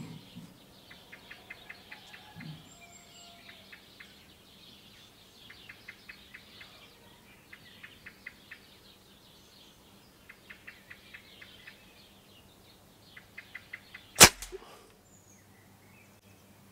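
Stoeger XM1 PCP air rifle fired once, a single sharp crack about fourteen seconds in, followed by a faint tap or two. Before the shot, faint quick runs of chirps, like a small bird's trills, come and go in the background.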